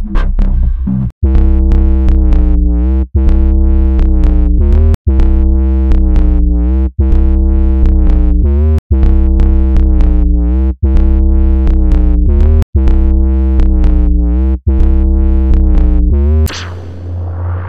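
Electronic techno track: a heavy synth bass under sustained stacked synth chords with a drum-machine beat, the whole mix cutting out for an instant about every two seconds. Near the end a crash rings out and the music thins to a fading bass tone.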